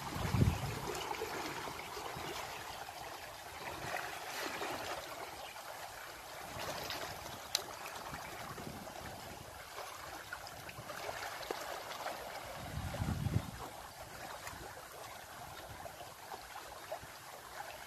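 Fast-flowing floodwater running past a riverbank, a steady rush and trickle. Brief low rumbles come about half a second in and again near thirteen seconds, and there is one sharp click midway.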